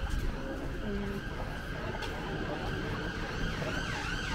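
Emergency vehicle siren on a fast yelp, rising and falling about three times a second, over steady street traffic; the siren grows clearer in the second half.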